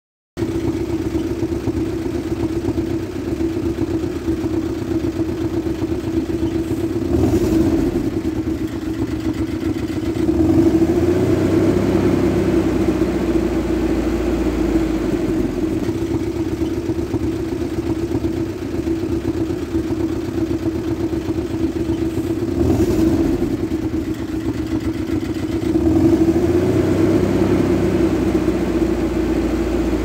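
Vehicle engine running steadily, with the revs picking up briefly a few times.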